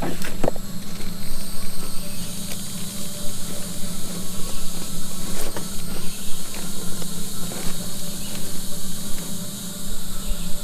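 A steady low hum and a high hiss run throughout, with a few sharp clicks at the start and again about five and a half seconds in, as small items are handled.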